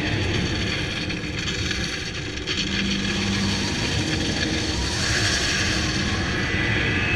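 Loud, steady rushing noise of a theme-park dark ride in motion: ride vehicle and soundtrack effects. A brief low hum comes in about two and a half seconds in.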